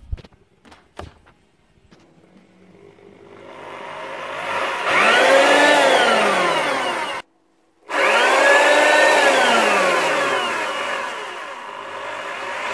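A couple of sharp clicks, then the electric motor of a Refina mixing drill runs up under its trigger, its whine rising and falling in pitch as the speed is varied. The sound cuts out suddenly about seven seconds in, then the motor runs again and speeds up near the end.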